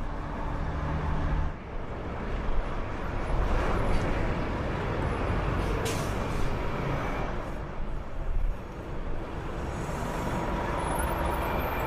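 City bus diesel engine running in street traffic, with a brief hiss of air brakes about halfway through.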